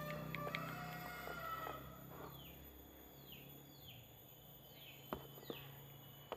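A bird calling faintly: a run of short, falling chirps, about one every half second, beginning about two seconds in.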